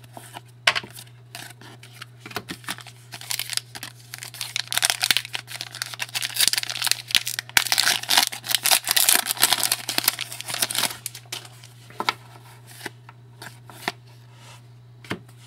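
Trading card pack being torn open and its foil wrapper crinkled, with cards shuffled and slid against each other; the rustling is densest through the middle, with scattered light clicks and slides at either end.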